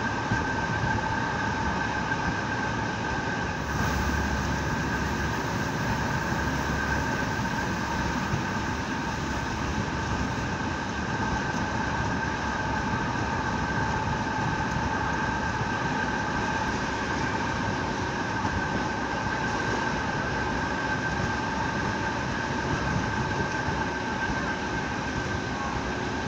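Fiat ALn668 diesel railcar running at speed on single-track line, heard from inside the car: steady engine and wheel-on-rail noise with a constant high whine.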